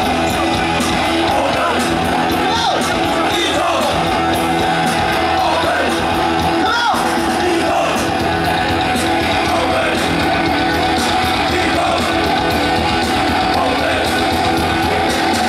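Heavy metal band playing live at a steady loud level: electric guitar through Marshall amplifiers and a drum kit, with yelled vocals.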